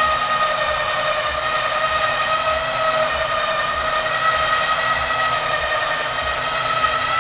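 Electric winch on a Can-Am Outlander ATV winching in under load, hoisting the front of the quad up onto its rear wheels. Its motor gives a steady high whine that cuts off suddenly near the end as the winch stops.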